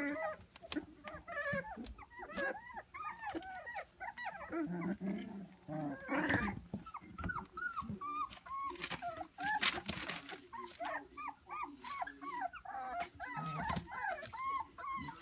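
A litter of three-week-old standard poodle puppies whimpering and squeaking, many short rising-and-falling cries overlapping one another, with a few sharp clicks among them.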